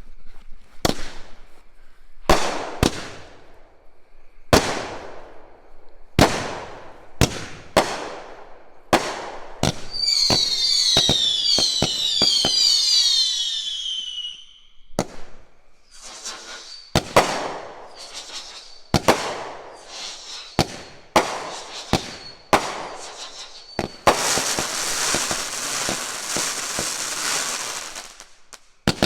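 200-gram consumer firework cake firing: a run of sharp launch shots and aerial bursts with echoing tails. About ten seconds in, a cluster of falling whistles sounds for about four seconds. Near the end, a few seconds of dense crackling.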